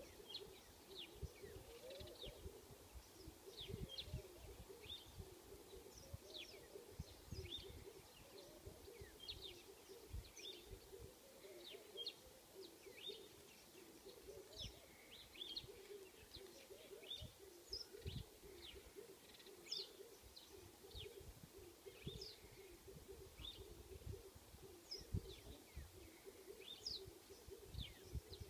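Faint birdsong: many short high chirps repeating throughout, over a lower, wavering call, with faint low rumbling beneath.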